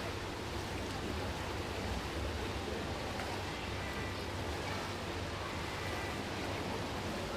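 Steady echoing noise of an indoor swimming pool hall: water churned by swimmers mixed with indistinct faraway voices.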